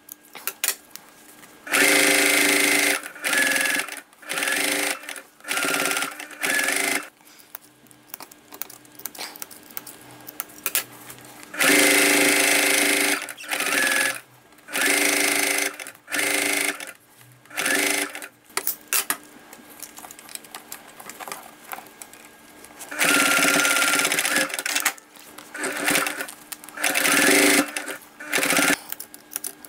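Electric sewing machine stitching in stop-start runs: a run of about a second and a half, then a string of short half-second runs, three times over, with quiet handling of fabric in the pauses.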